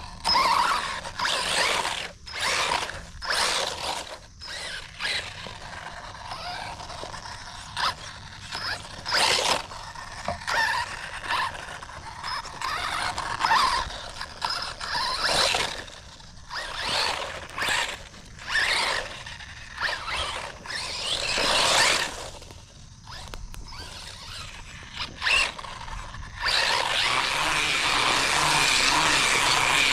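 Brushless motor and geared drivetrain of a 1/16-scale HBX 16889A Pro 4x4 RC truck running in many short, stop-start bursts of throttle. About 26 seconds in it settles into a continuous run.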